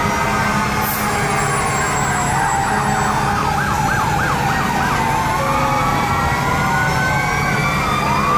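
Several emergency-vehicle sirens, fire trucks among them, sounding at once: overlapping slow rising and falling wails, with a fast yelp of about four sweeps a second for a couple of seconds in the middle, over a steady low hum.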